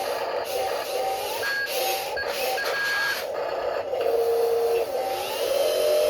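Small electric motors of 1/14-scale RC construction machines whining as they work, several tones starting, stopping and stepping in pitch as different functions are driven on and off.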